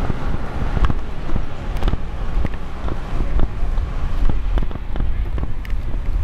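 Wind rumbling on the microphone, with irregular short clicks of footsteps on pavement.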